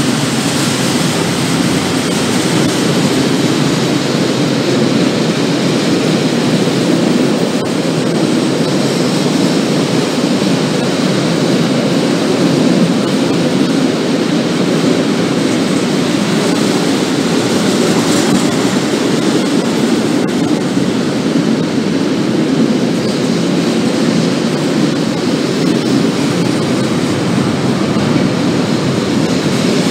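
Loaded two-deck car-carrier freight wagons rolling past at speed, a loud, steady rush of wheels on rail.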